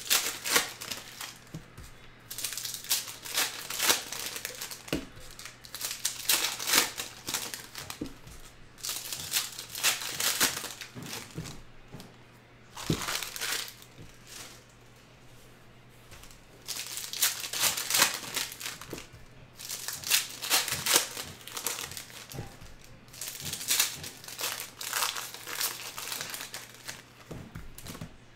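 Bowman Draft baseball card pack wrappers being torn open and crinkled by hand, in irregular bursts with a short lull about halfway through.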